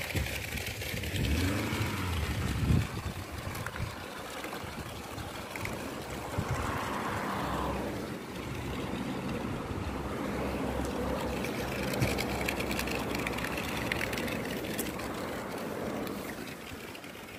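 Motor vehicle traffic: a steady rush of engines and tyres that swells and fades as vehicles pass.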